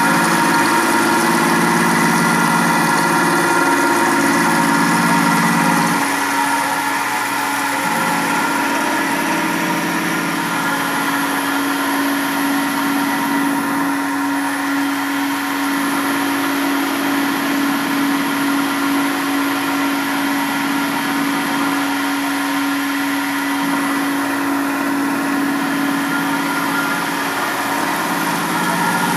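Fanuc Tape Center Model D CNC milling machine cutting metal with an end mill, its 5.5 kW Fanuc AC spindle running with a steady whine. A lower hum swells and drops every few seconds as the load on the cutter changes.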